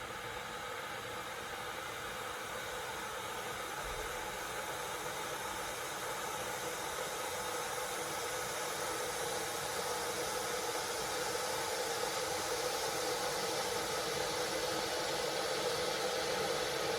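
Kenwood JKP230 electric kettle heating water: a steady hiss that grows slowly louder as the water nears the boil.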